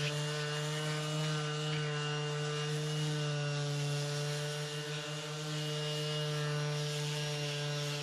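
Power sander running at a steady speed: an even motor hum with a hiss above it.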